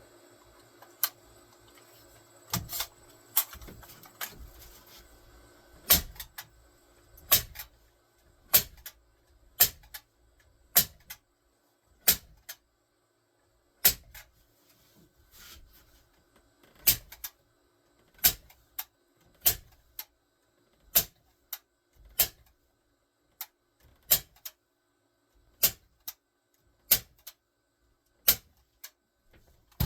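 Staple gun driving staples through rubber-backed carpet into a wooden dolly frame: a sharp snap roughly every second and a bit, about twenty shots in a row.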